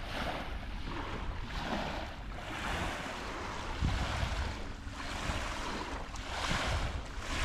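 Small waves washing onto a sandy beach, the surf rising and falling as each one comes in, with wind buffeting the microphone.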